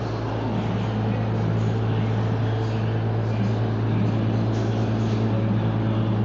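Steady, loud droning hum of shop machinery running, with a low hum and a constant rushing noise over it.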